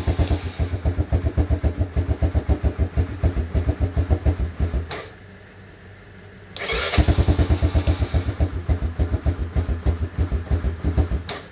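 Honda Fourtrax 300 ATV's single-cylinder four-stroke engine tried twice on the electric starter, each try a fast, even pulsing of about five seconds that then stops. The engine does not keep running: the same won't-stay-running fault that a carburetor cleaning has not cured.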